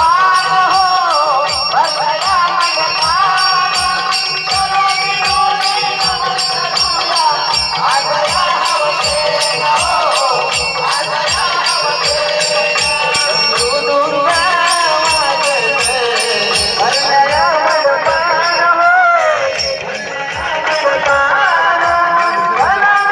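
Marathi naman folk music: a wavering melody over a steady drum beat of about two strokes a second, with bright cymbal-like strokes keeping time on the beat. The music dips briefly near the end, then picks up again.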